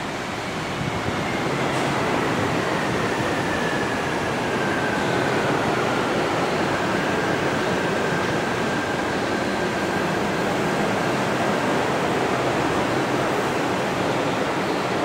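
Bombardier Innovia Monorail 300 train of São Paulo Metro Line 15 pulling into a station on its rubber tyres. Its running noise swells in the first two seconds, and an electric drive whine falls in pitch as it slows over the first six seconds, holds steady, then fades as the train stops.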